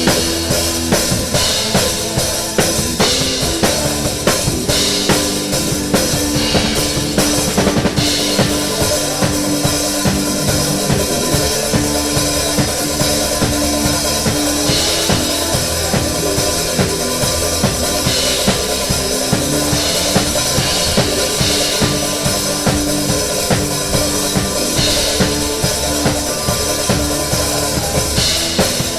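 Drum kit played with a worship band: steady kick and snare beat under sustained bass and keyboard notes, with cymbal crashes every few seconds.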